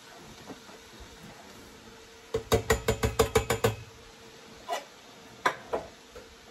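A metal can of cannellini beans rapped about ten times in quick succession, then twice more, as the beans are shaken out into the pot of an electric pressure cooker.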